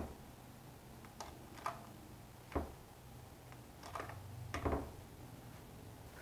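Six or so faint, irregularly spaced clicks and taps, the sound of the wooden-panel 12-volt wiring model being handled.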